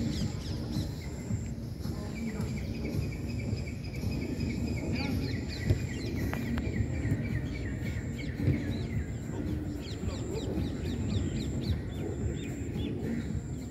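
Many birds chirping and calling together in short, quick notes, over a steady low background rumble.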